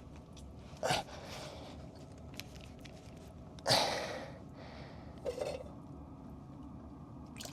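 A few short, breathy puffs from a man catching his breath, the loudest about four seconds in, over a faint steady background.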